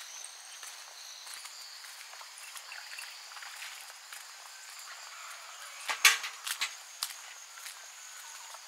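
Crickets chirring steadily with soft footsteps on a path. A short cluster of louder knocks comes about six seconds in.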